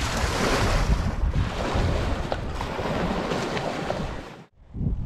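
Wind buffeting the microphone over small waves splashing on a sandy shore around a beached boat's hull; the sound cuts off abruptly about four and a half seconds in.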